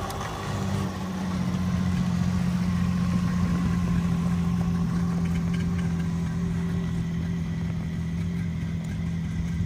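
Snowmobile engine idling steadily, a little louder from about a second in.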